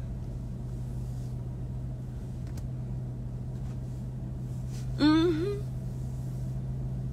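Steady low hum inside a car, with one short wordless vocal sound from a woman about five seconds in.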